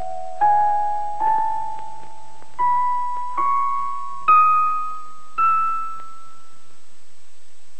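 Title music: a keyboard instrument plays single notes one at a time, each struck and left to ring and fade, climbing step by step up the scale. Six notes sound, and the last one rings out and dies away about six seconds in.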